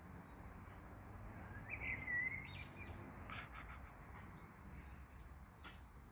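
Small songbirds calling: short, high, falling chirps repeated near the start and again in the last couple of seconds, with a lower warbling phrase about two seconds in.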